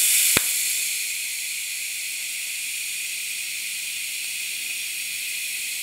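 DC TIG welding arc at about 35 amps, no filler rod, hissing steadily as a tack weld is laid. It starts abruptly, with a sharp click about half a second in.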